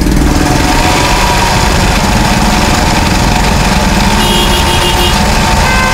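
Simaru SM-20U73 industrial zigzag sewing machine running steadily at speed, stitching a decorative zigzag pattern into fabric with a fast, even mechanical clatter.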